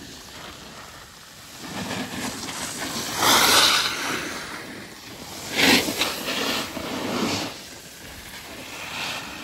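Rushing hiss of skis sliding and turning on packed snow, mixed with wind on the microphone, swelling louder twice: about three and a half seconds in and again near six seconds.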